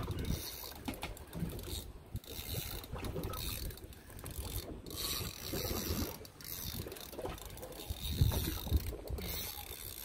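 Spinning reel being cranked, its gears and handle clicking as a hooked fish is reeled in, over a low, uneven rumble.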